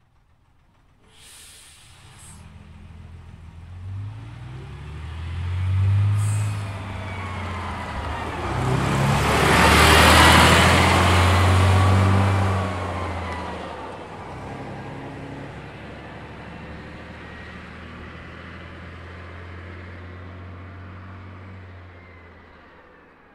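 Drive-by of a Leyland National Mk1 bus with its Leyland 0.510 8.2-litre fixed-head turbodiesel: the engine grows louder as the bus approaches, passes with a burst of engine and tyre noise about ten seconds in, then fades as it pulls away. Short high hisses of air come in the first few seconds and again about six seconds in.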